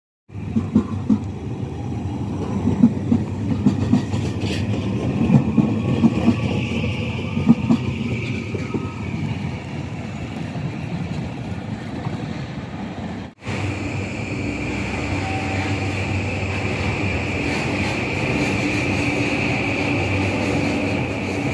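JR Kyushu 821 series electric train running into a station, with a low rumble and wheel clicks over rail joints. After a cut about 13 seconds in, an 821 series train runs steadily at a platform, and its motor whine rises in pitch near the end as it gathers speed.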